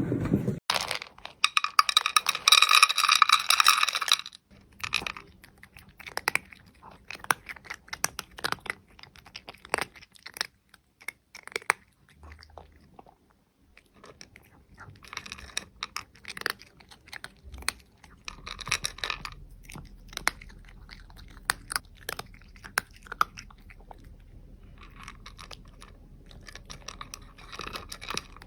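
A loud, high-pitched sound with several tones for about three and a half seconds near the start, followed by many short, irregular crunches, as of a pet chewing something crunchy.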